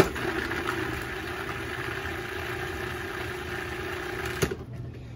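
Food processor motor running steadily for about four and a half seconds, with a click as it switches on and another as it stops. It is blending a teaspoon of water into a thick cream sauce to thin it.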